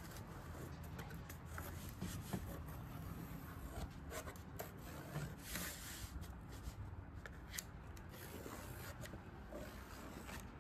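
Faint pencil scratching and rubbing as a line is traced around a chair's curved wooden seat frame onto plywood, with a few light taps.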